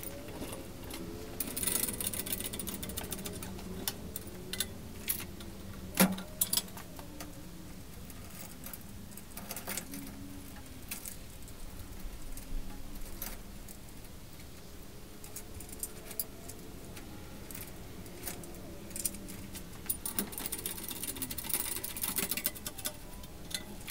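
Sped-up workshop sounds of an engine being worked into place on a hoist and creeper: rapid metallic clinks and jangles of hoist chains and hand tools, with scattered knocks. A sharp knock about six seconds in is the loudest, and a steady low hum runs through the first two-thirds.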